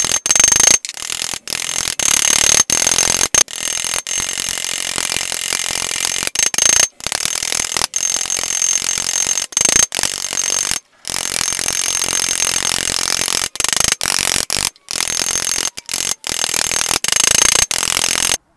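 Rapid, continuous tapping of a ball-peen hammer peening nail rivets on a sheet-steel helmet over an anvil, the steel ringing high with each blow. The hammering breaks off abruptly several times and stops suddenly near the end.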